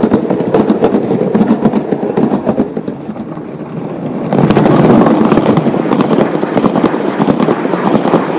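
Gauge 1 model train rolling past close by, its metal wheels rattling and clicking rapidly over the track. The rattle swells about four seconds in as another train comes past.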